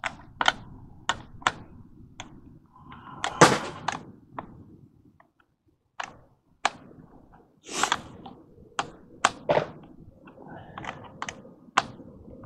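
Irregular sharp clicks and knocks, about a dozen, the loudest about three and a half seconds in: galvanized steel pipe, fittings and tools being handled during pipe fitting.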